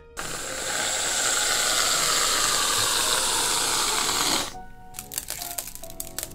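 Aerosol can of Reddi-wip whipped cream spraying in one steady hiss for about four seconds. Then a quick run of small clicks as candy sprinkles are poured onto the cream and chocolate shoe.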